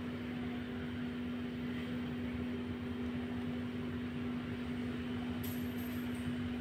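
Steady machine hum: one low held tone under a faint even hiss, unchanging throughout.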